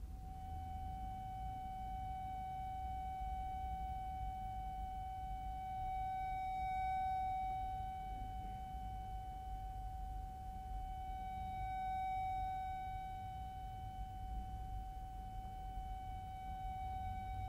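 Accordion holding a single high note without a break, swelling a little in loudness twice.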